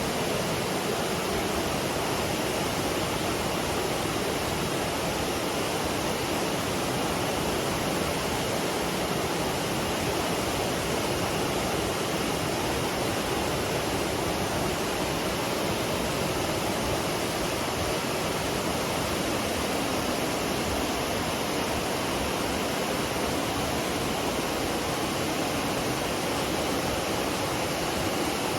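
McCloud Falls, a waterfall on the McCloud River, making a steady, unbroken rush of falling water.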